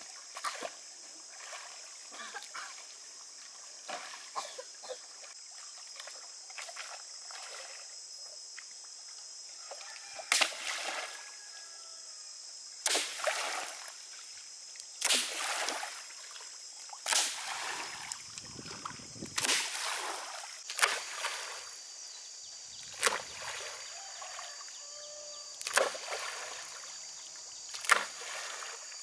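Lake water splashed by a person wading in it: small splashes at first, then about nine loud splashes roughly two seconds apart.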